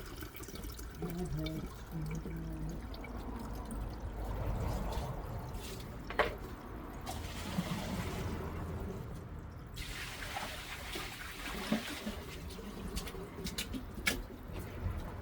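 Water running and trickling through a drain, over a steady low hum, with a couple of sharp knocks.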